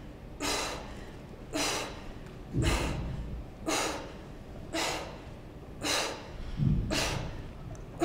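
A woman's forceful breaths while exercising: short, sharp exhalations about once a second, in time with the repetitions of a sandbag chest press with bicycle legs. Twice a low thump sounds under a breath.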